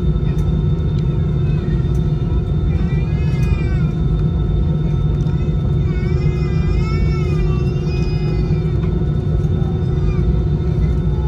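Steady low rumble of an Airbus A320-216's CFM56-5B jet engines and the airframe rolling on the runway, heard inside the cabin over the wing, with a few steady whine tones on top. A high, wavering voice cries out twice, about three and six seconds in.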